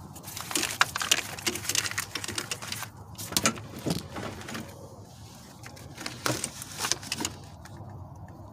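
Irregular clicks, taps and clatter of hands and tools handling parts in a car's engine bay, coming in short clusters.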